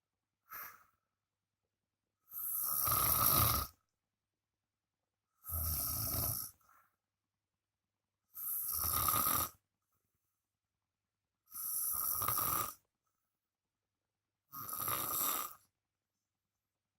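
A sleeping man snoring loudly. After a short one about half a second in, there are five long snores about every three seconds, each lasting about a second, with silence between them.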